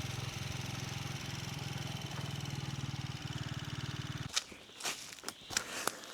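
A small engine running steadily with a low, fast-pulsing hum, then cut off about four seconds in, followed by a few sharp clicks and knocks.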